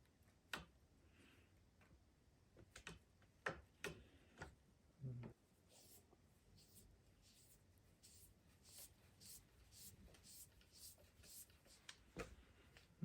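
Quiet hand work with tools and parts: several sharp clicks and knocks and a dull thump, then a regular run of short rasping strokes about twice a second.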